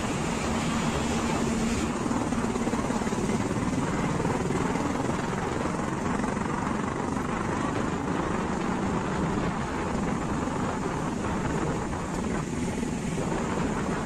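Road traffic passing close by on a bridge roadway: motor scooters, cars and a truck going by, making a steady rushing rumble, with an engine hum in the first couple of seconds.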